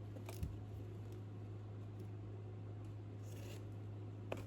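A package being opened by hand: a few short clicks and taps and a brief rustle of packaging about three seconds in, over a steady low hum.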